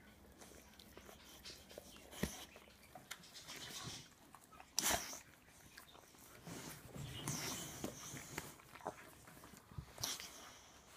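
A boxer and a bullmastiff puppy licking and mouthing each other's faces: faint licking and mouth noises, broken by a few short, sudden louder sounds, the loudest about five seconds in and another near the end.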